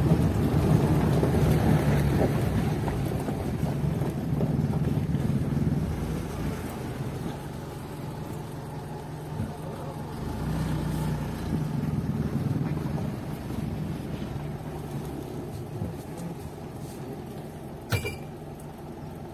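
Car engine and road noise while driving, a steady low hum that gradually gets quieter, with a single sharp click near the end.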